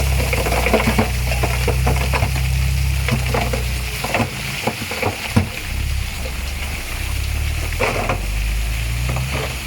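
A heavy diesel engine runs under load while loose stone crunches and clatters in many small knocks. The engine's low hum eases off about halfway through and then builds again.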